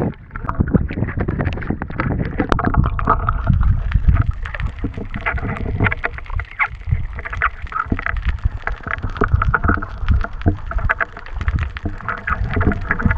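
Water sloshing and splashing around a waterproof action camera at the sea surface, with a muffled underwater rumble and gurgle as it dips below the surface.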